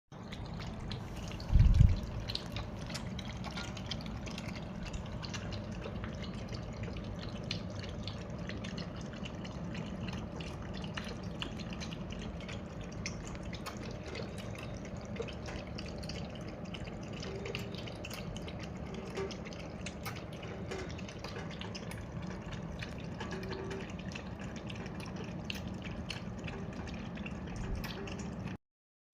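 Water dripping and trickling: many scattered small drips over a steady wash, with one loud low thump about two seconds in.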